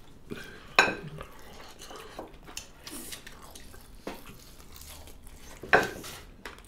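Close-up eating sounds of people eating mutton curry and rice with their hands: chewing and mouth noises, with a few short sharp clicks and smacks against ceramic plates. The loudest comes near the end.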